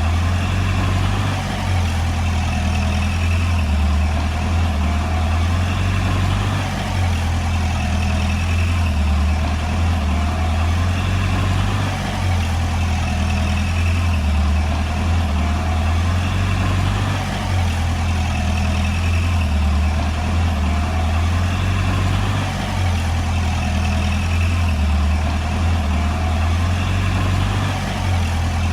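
Diesel engine of a small Komatsu D20P crawler bulldozer running steadily as it works, with a deep hum that swells and eases slightly every couple of seconds.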